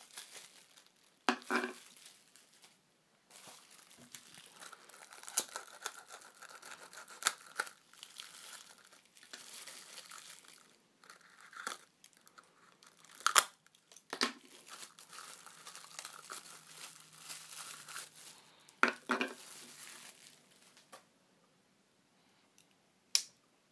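Clear plastic shrink-wrap crinkling and tearing as it is slit with a pocket knife and pulled off small plastic measuring cups, with a few sharp clicks and knocks in between.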